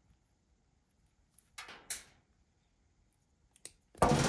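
Wire strippers taking the insulation off the dryer's door-switch wires: two short snips, then a loud sudden clack that rings and dies away near the end.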